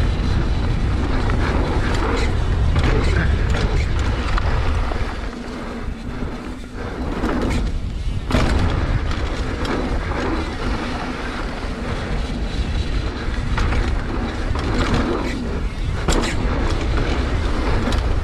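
Scott Gambler downhill mountain bike ridden fast down a dirt trail, heard from the rider's GoPro: a steady deep rumble of wind buffeting the microphone, with tyres rolling over dirt and the bike clattering over bumps.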